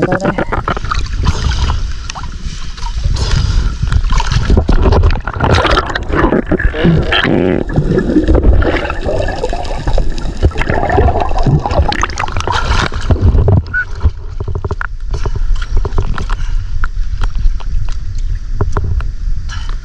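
Muffled underwater sound picked up through a camera housing: a heavy low rumble with gurgling and many short clicks. In the later part it gives way to open-air water sounds around an outrigger boat.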